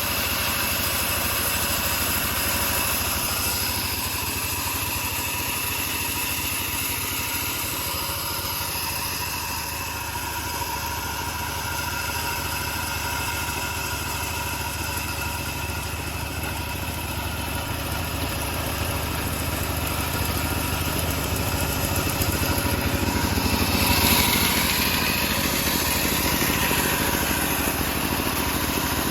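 Engine of a homemade bandsaw running steadily, with a louder, noisier swell that falls in pitch near the end.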